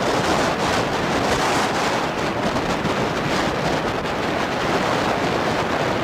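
Strong wind rushing and buffeting over the microphone as a steady, loud roar of noise, with no let-up.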